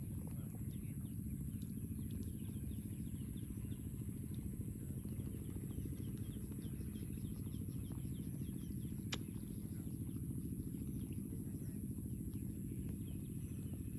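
Outdoor ambience by a pond: a steady low rumble with small birds chirping repeatedly over it, and a single sharp click about nine seconds in.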